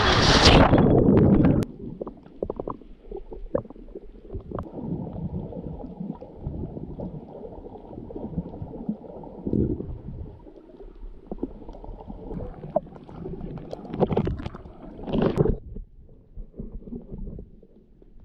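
A loud splash as a swimmer plunges into choppy sea water, then the muffled rumble and gurgle of the sea heard through a camera held underwater, with scattered small knocks and a louder surge about fifteen seconds in.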